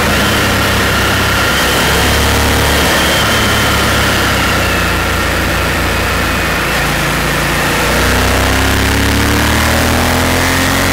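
Honda Varadero motorcycle's V-twin engine running at road speed under a steady rush of wind. It eases off slightly mid-way, then rises in pitch as it accelerates again about eight seconds in.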